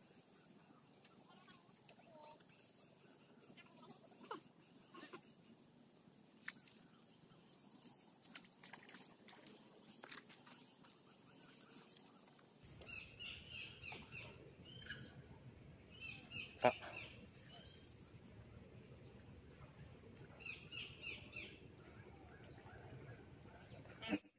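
Quiet outdoor ambience with small birds calling in repeated short chirping phrases. Scattered sharp clicks come in the first half, and a single sharp knock about two-thirds of the way through is the loudest sound.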